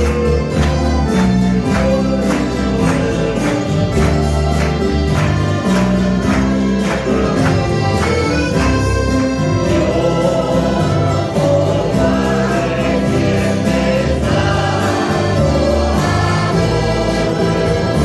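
Church string ensemble of strummed acoustic guitars, mandolins, accordion and double bass playing a hymn with a steady beat; a group of voices comes in singing partway through.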